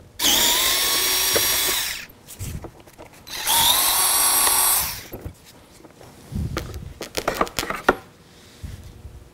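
A cordless power screwdriver with a Torx T20 bit backs out two screws from a plastic fog-light trim panel, one run after the other, each about a second and a half long, its whine rising as it spins up. Then come plastic clicks and knocks as the loosened grille is pulled free.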